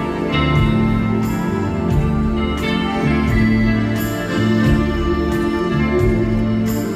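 Live band music with a steady beat under sustained, organ-like chords.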